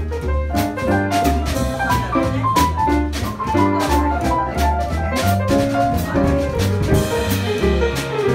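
Instrumental jazz from a small band: a keyboard plays a melodic line over double-bass notes changing about twice a second, with a drum kit keeping time on cymbals and drums.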